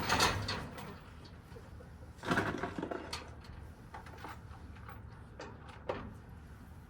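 Small lock parts being handled at a bench: two short bursts of scraping and rattling, one at the start and one about two and a half seconds in, then a few sharp metallic clicks.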